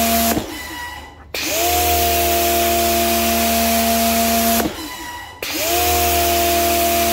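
Pressure washer running, its jet hissing onto a concrete floor. It cuts out about half a second in and again about four and a half seconds in, each time starting up again about a second later with a rising whine.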